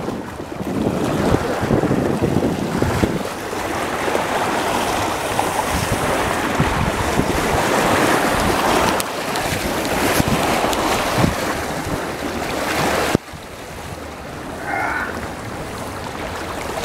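Wind buffeting the microphone over river water lapping on a rocky shore. The wind noise drops away sharply about 13 seconds in, leaving quieter water sounds.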